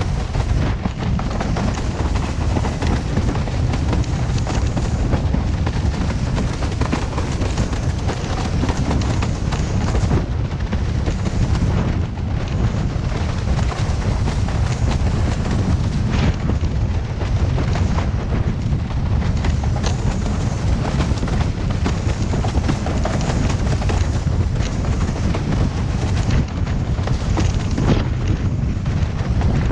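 Heavy, constant wind buffeting on the camera microphone, mixed with the rush of water under a slalom windsurf board planing fast over chop.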